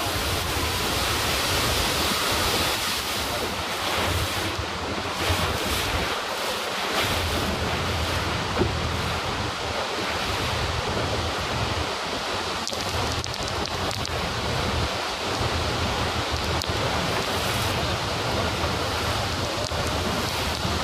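Steady rush of churning river water and waterfalls, with wind buffeting the microphone in uneven gusts.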